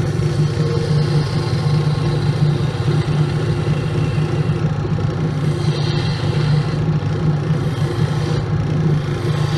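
Grizzly wood lathe running with a steady motor hum while a hand-held turning tool cuts the spinning wood blank, with a brighter hiss of cutting about six seconds in.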